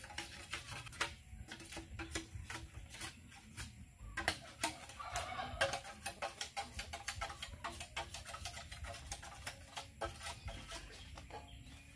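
Machete blade chopping and trimming a bamboo pole: an irregular run of sharp knocks, several a second.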